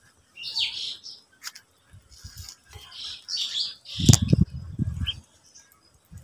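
Ducklings peeping in short high chirps, in a burst about half a second in and again around three seconds in. Around four seconds in comes a stretch of low thumps and rumbling, the loudest sound, with a sharp click at its start.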